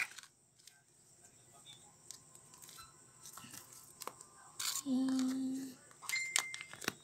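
Soft clicks and sticky squelches as a small plastic cup is handled on a wooden floor and homemade slime is pushed into it. A brief steady low tone sounds about five seconds in.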